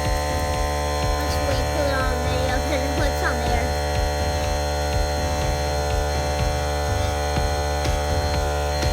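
Fidget spinner spinning at very high speed: a steady, loud hum made of many fixed tones, with a regular low pulsing underneath.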